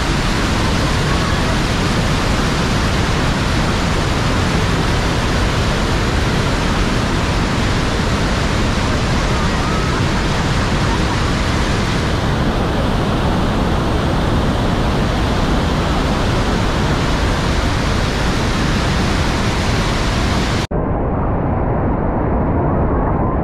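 Loud, steady roar of water crashing down close by at the Bridal Veil Falls. About twenty seconds in the sound cuts off for an instant, then carries on duller, without its high hiss.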